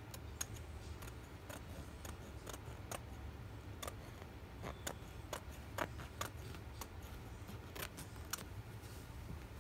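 Scissors snipping through pillow fabric: a run of short, sharp, irregularly spaced snips as the blades close.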